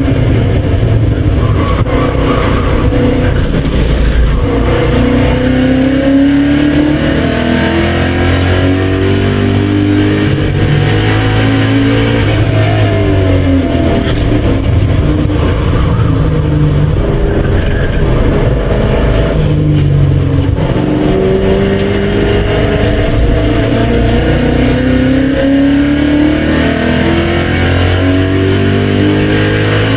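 BMW M5 E39's 4.9-litre S62 V8 running hard on a racetrack, repeatedly climbing in pitch as it revs through the gears and dropping back at each shift or lift, with a short break about twenty seconds in.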